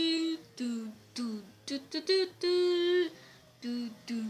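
A person humming a tune in a repeating phrase of held notes, short falling glides and quick short notes.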